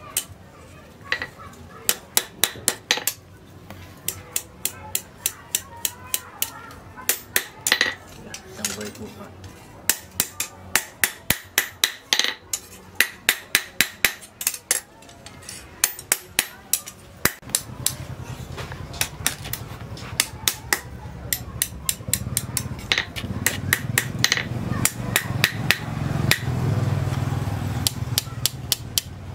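Hand hammer striking a red-hot steel knife blade, forged from a tractor plough disc, on an anvil: sharp strikes in runs of several quick blows with short pauses between.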